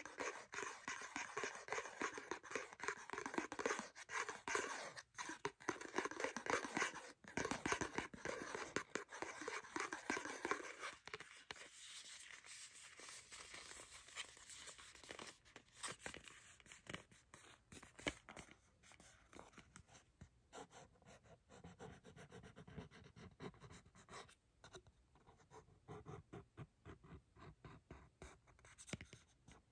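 Fingernails scratching and tapping on a cardboard mascara box, dense and rapid for the first ten seconds or so, then sparser separate taps and scratches.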